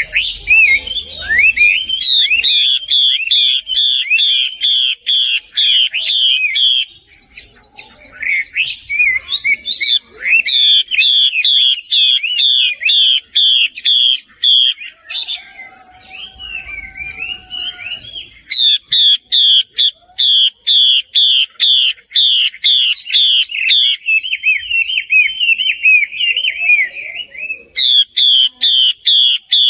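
Female Chinese hwamei singing loudly. Long runs of the same whistled note repeated about three times a second are broken now and then by shorter bursts of varied, warbling phrases.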